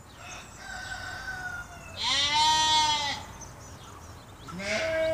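Rooster crowing: a fainter call in the first second or so, a loud, drawn-out crow about two seconds in, and another beginning near the end.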